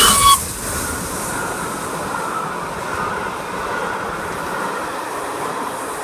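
Peppercorn A1 three-cylinder steam locomotive 60163 Tornado passing close beneath, loudest in the first half-second, then its train of coaches rolling by with a steady rumble and a faint wavering wheel squeal.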